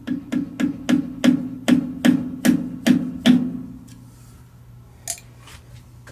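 Hammer taps on a workpiece held in a lathe chuck, about ten strikes at roughly three a second, each with a short metallic ring, knocking the part over to run true. Two lighter knocks follow about five seconds in.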